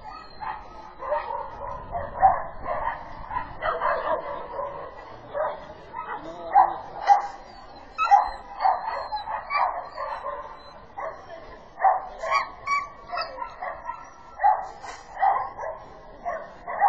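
A dog barking again and again in an irregular series of short barks.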